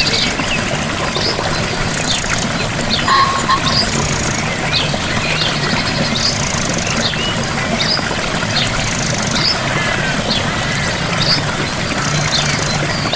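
Gentle waterfall: a steady rush of falling water, with birds chirping over it in frequent short, high calls.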